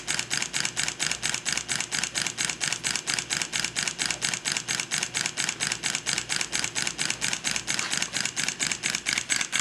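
Model two-cylinder marine compound steam engine running steadily clockwise, its exhaust chuffing and valve gear clicking in a rapid, even beat. The beat grows a little louder near the end.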